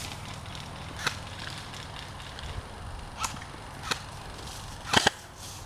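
Scattered single shots from airsoft guns, each a sharp snap. There is one about a second in, two more between three and four seconds, and a louder, quick pair near five seconds.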